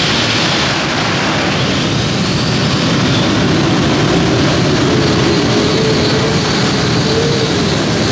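Multi-engine unlimited-class pulling tractor running loud at high revs as it sets off on a pull, with a steady high whine over the engine noise and the engine note climbing slightly partway through.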